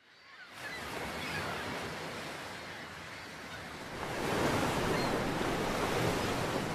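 Ocean surf: waves washing and breaking in a steady hiss, fading in from silence and swelling about four seconds in.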